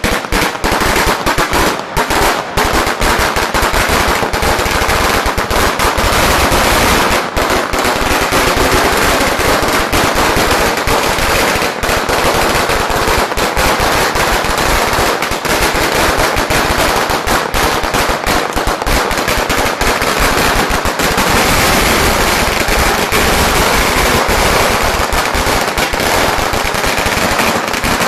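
A 100,000-shot firecracker string burning down, its crackers going off in a dense, unbroken rattle of bangs.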